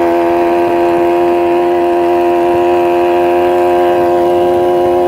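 Yamaha Chappy 50 moped's small single-cylinder two-stroke engine running at a steady, unchanging pitch while the moped cruises at about 40 km/h.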